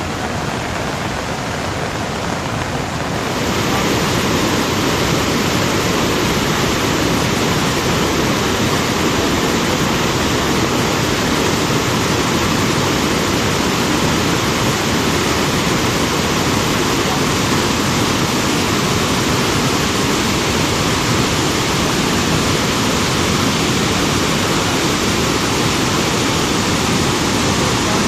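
Rushing floodwater of the swollen Ghaggar river, a steady roar of water that gets louder about three seconds in.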